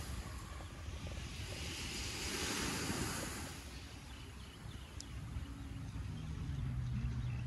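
Small waves washing onto a sandy beach: one wash swells and fades between about two and three and a half seconds in, over a constant low rumble. A low, steady engine drone comes in near the end.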